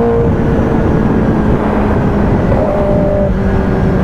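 Kawasaki ZX-10R inline-four engine running steadily while riding, under a heavy rush of wind on the helmet-camera microphone. The engine note drops a little about a third of a second in.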